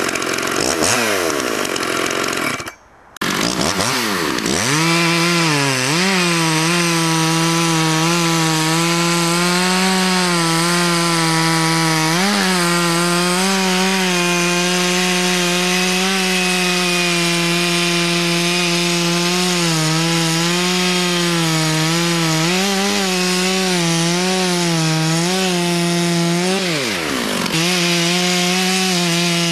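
Dolmar 7900 big-bore two-stroke chainsaw revving, its pitch sweeping down between blips, then after a short drop-out about three seconds in, cutting through a large log under load at a steady high pitch with small dips. Near the end the engine pitch falls briefly and picks back up in the cut.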